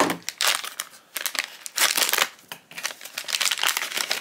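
Gold foil blind-bag pouch crinkling as it is crumpled and worked open by hand, in irregular bursts with short pauses.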